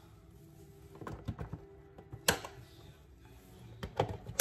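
Scattered clicks and knocks of cardboard honor boxes being handled: a sharp knock about two seconds in and a quick cluster of clicks near the end.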